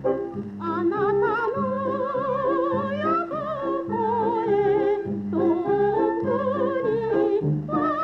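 A singer with a wide vibrato sings two phrases, the second starting about five seconds in, over a small orchestra's steady low accompaniment on the beat. This is a 1930 Japanese popular song (ryūkō kouta) played from an old recording with the top end cut off.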